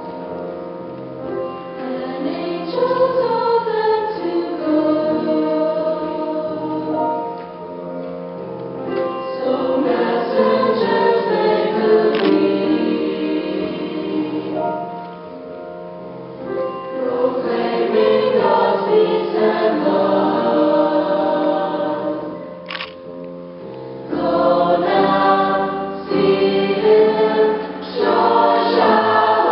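Mixed choir singing, accompanied by piano. The singing grows louder over the last few seconds, with a brief click shortly before.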